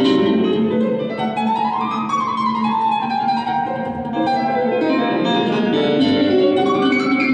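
Ten-string bandolim (Brazilian mandolin) and grand piano playing together live, with a run of notes that climbs and then falls about two seconds in.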